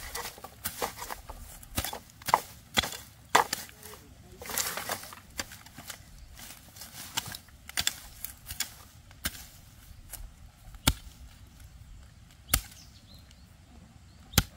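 A dozen or so sharp knocks, irregularly spaced, with a longer scraping noise about four and a half seconds in.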